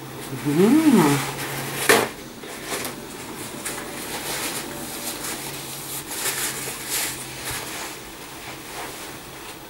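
A woman eating, with a closed-mouth 'mmm' of enjoyment that rises and falls in pitch about half a second in, a sharp knock near two seconds, then soft rustling of a paper napkin as she wipes her mouth, over a low steady hum.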